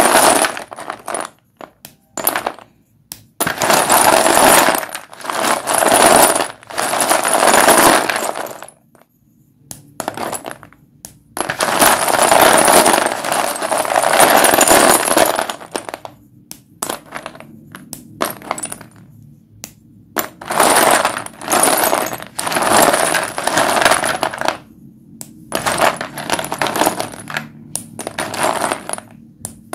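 White dustless chalk sticks being broken and crumbled: runs of dry crunching lasting a second or several, with short sharp snaps between them.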